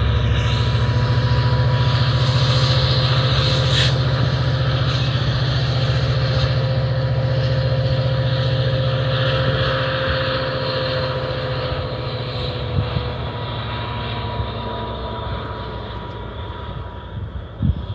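Diesel locomotive of an exo commuter train running steadily: a deep engine rumble with a steady whine over it, slowly getting quieter over the second half.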